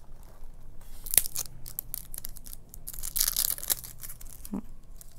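Crinkling and rustling of packaging with scattered sharp clicks, including a distinct one about a second in, as a small liquid eyeshadow tube is handled and opened.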